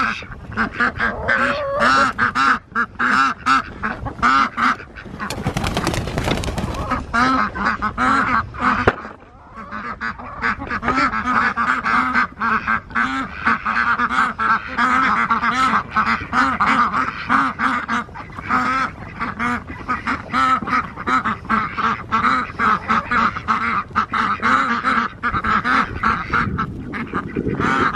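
A flock of white domestic ducks quacking in rapid, overlapping calls almost without pause. A short rush of noise breaks in about five seconds in.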